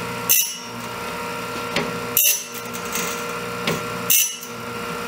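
Homemade bandsaw blade sharpener running: a steady motor hum, with the grinding wheel rasping against a band mill blade tooth three times, about two seconds apart, as the cam drive steps the blade on one tooth at a time. Each grind dresses the front of the tooth profile.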